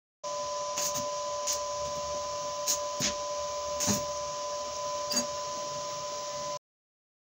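Electric arc from stick (electrode) welding: a steady hiss with sharp crackles and pops every second or so, over a steady two-note whine. It cuts off abruptly about a second before the end.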